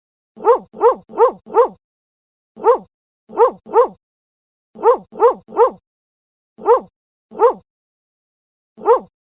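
A dog barking: thirteen short, sharp barks in quick clusters of four, three, three, two and one, with dead silence between the clusters.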